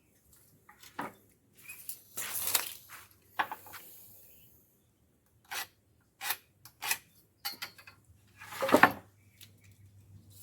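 Irregular knocks, clicks and scrapes of tools and wood being handled, with two longer, louder scraping sounds, one about two seconds in and one near the end.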